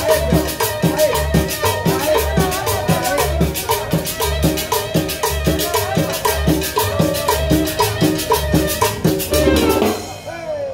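Live Latin dance band playing: congas, drums and metal scrapers (güiras) keep a fast, steady beat under a low bass pulse. The music stops abruptly about ten seconds in.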